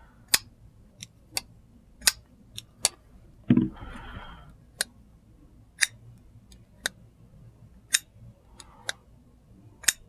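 Flipper folding knives being flicked open and closed by hand, each stroke a sharp metallic click of the blade snapping into place, about one click a second, with a brief soft rustle of handling about three and a half seconds in.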